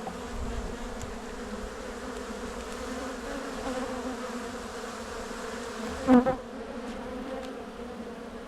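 Honey bees of an open hive buzzing in a steady, even hum, with one brief louder sound about six seconds in.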